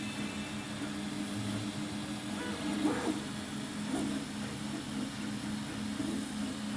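MINGDA MD-6L 3D printer running, with its print head moving on linear guide rails: a steady mechanical hum from the motors and fans, with a few brief louder movement sounds about three and four seconds in.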